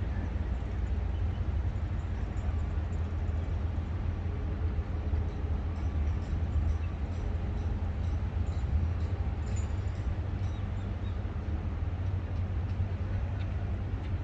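Steady outdoor city ambience: a continuous low rumble of distant traffic and construction under the even hiss of water fountains, with a few faint high chirps in the middle.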